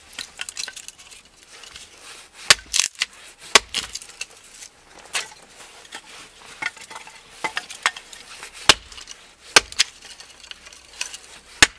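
Hatchet splitting thin strips of kindling on a wooden chopping block: several sharp chops at uneven intervals, with lighter knocks and clatter of split sticks between them.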